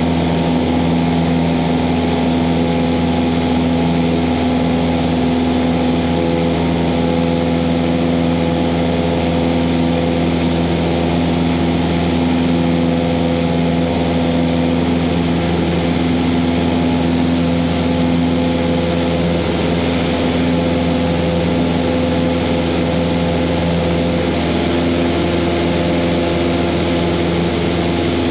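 Cessna 172's piston engine and propeller running steadily at climb power just after takeoff, heard from inside the cabin as an even, loud drone with steady tones.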